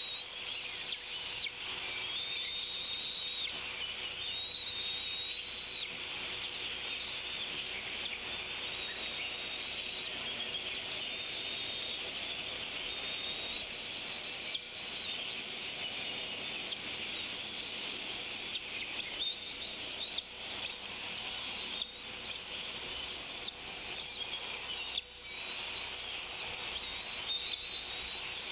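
Songbirds singing around a tree: many overlapping whistled phrases and chirps over a constant twittering background, with a faint steady hum beneath.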